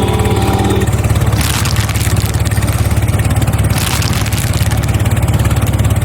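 A vehicle engine running steadily with a fast, even pulsing beat, with two short hissy surges about a second and a half in and again around four seconds.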